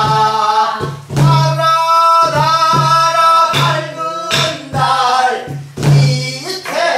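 A Namdo folk song sung in the wavering, ornamented style of Korean minyo, with sharp strokes on a buk barrel drum keeping the rhythmic cycle.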